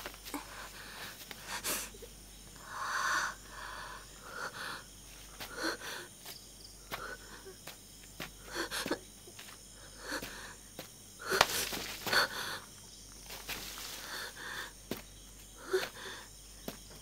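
A woman breathing hard in short, irregular gasps, with rustling and crunching of dry leaves and undergrowth as she struggles up and moves on foot.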